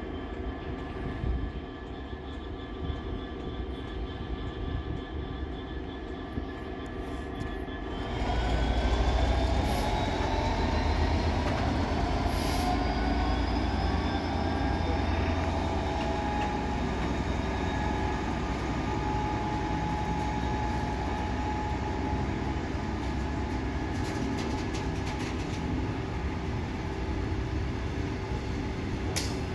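EWS Class 66 diesel locomotive idling with a steady hum. About eight seconds in its two-stroke V12 diesel opens up and it pulls away, with a rising whine as it gathers speed. This is followed by the steady rumble of its covered steel-coil wagons rolling past.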